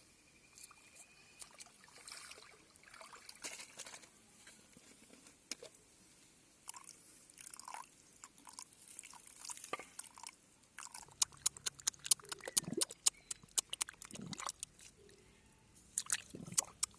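Wet squelching and splashing of mud and water, with scattered sharp clicks and crackles that come thickest in the latter half.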